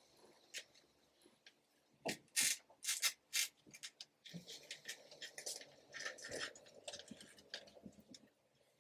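Hand-handling noises: rustling, rubbing and crackling, with several sharper, louder crackles between about two and three and a half seconds in.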